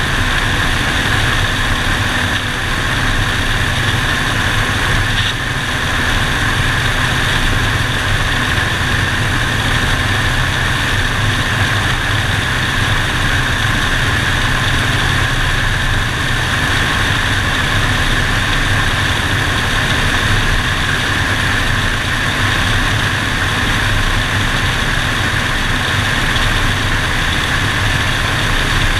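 Light propeller airplane's engine and propeller droning steadily in flight, with no change in pitch or level.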